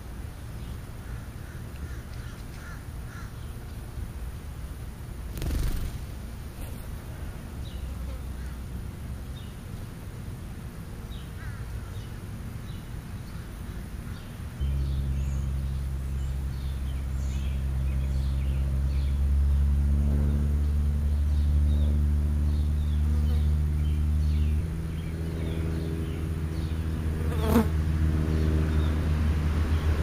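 A steady low engine hum starts about halfway through and keeps going, shifting in pitch about ten seconds later. Small birds chirp now and then.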